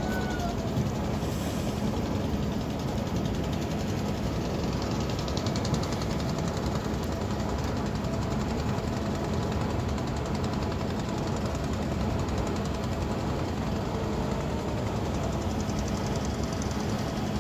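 A boat's engine running steadily: an even low drone with a constant hum, unchanging throughout.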